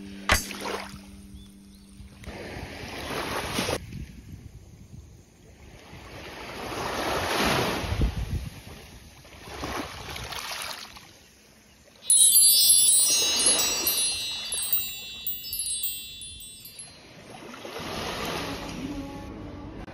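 Small waves washing up over a pebble beach, coming in five surges, each a couple of seconds long. About twelve seconds in, a cascade of bright chime tones rings out for about five seconds over the surf.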